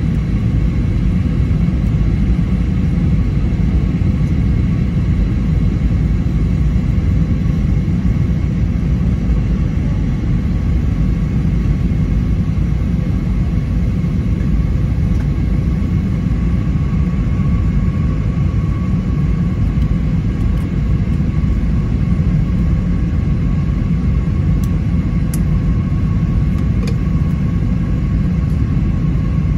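Steady cabin noise inside a jet airliner on descent: a dense low rumble of engines and rushing air, with a faint steady high whine above it.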